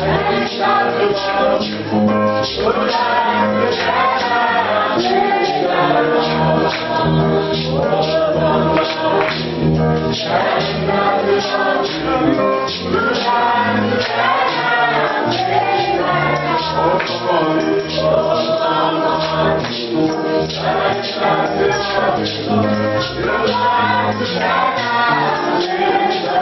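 Choir singing a gospel song, with tambourine and shaker percussion keeping a steady beat.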